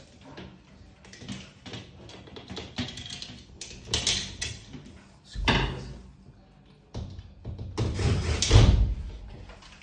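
Irregular knocks and scraping from a metal LED tube lamp casing being handled and screwed to the ceiling, the loudest and longest stretch near the end.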